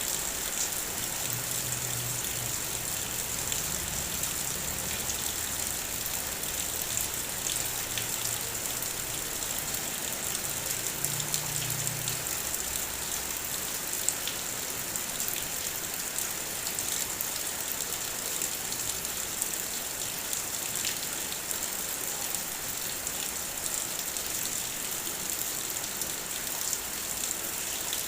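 Heavy rain falling steadily: a dense, even hiss with many individual drops ticking through it.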